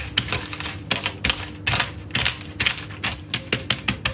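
Rolling pin crushing hard caramelised-sugar nut praline inside a plastic bag: rapid, uneven crunching clicks, about three a second.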